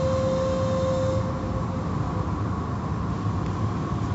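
Automatic car-wash tunnel heard from inside the car: a steady rumble of wash machinery and water spray on the windshield. A steady whine fades out about a second and a half in.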